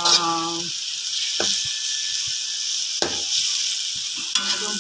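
Tofu and garlic chives sizzling steadily as they are stir-fried in a steel wok, with the metal ladle scraping against the wok twice, about a second and a half in and again about three seconds in.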